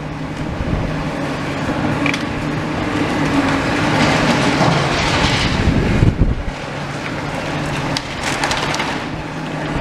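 Skip loader lorry running with a steady engine hum as it handles a big empty steel skip, with rattling and scraping clatter loudest around the middle. Wind rumbles on the microphone.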